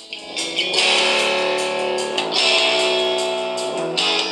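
Guitar-driven song playing loudly from a BTS-06 suction-cup Bluetooth shower speaker, getting markedly louder about a second in.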